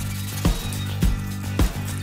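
Soft background music with a steady beat, just under two beats a second.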